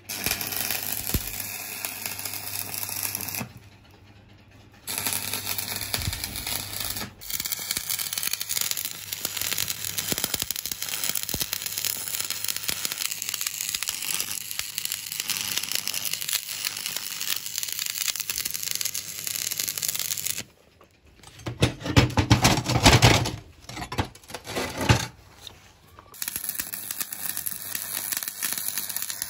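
Stick arc welding: the electrode's arc crackling and sizzling steadily under a low hum, stopping briefly twice as the arc is broken and struck again. About two-thirds through, a few seconds of louder, deeper clattering take its place before the arc crackles again.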